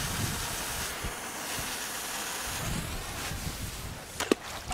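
Lit firecracker fuse hissing steadily as it burns, then a single sharp crack near the end.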